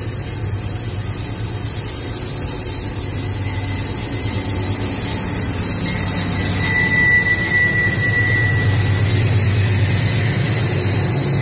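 GE AC44i diesel-electric locomotives of a loaded grain train passing close by: a steady low diesel engine rumble with wheel-on-rail noise, growing louder as the units go past. About halfway through, a high steady whine sounds for about two seconds.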